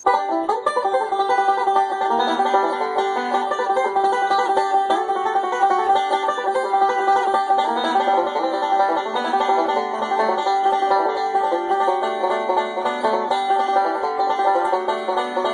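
Bluegrass-style music led by a fast-picked banjo, steady in level throughout.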